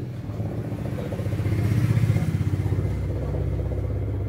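An engine running with a rapid pulsing low note, growing louder toward the middle and then settling.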